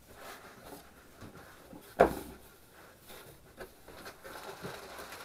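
Cardboard shipping box being opened by hand: flaps pulled up and folded back, with rustling and scraping cardboard and one sharp knock about two seconds in.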